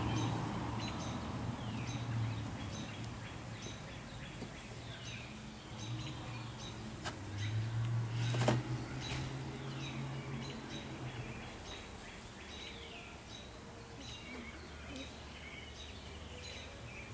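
A songbird chirping over and over, short high notes and quick downward slurs, with a low hum that swells and fades underneath and one sharp click about halfway through.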